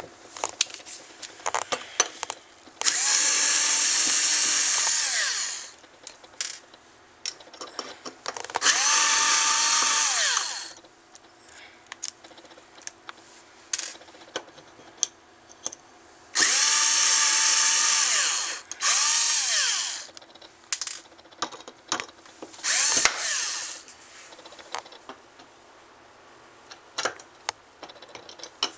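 Power drill used as a screwdriver, backing out small screws inside a hard drive. It runs in five short bursts, each spinning up and winding down, with clicks and handling noise between them.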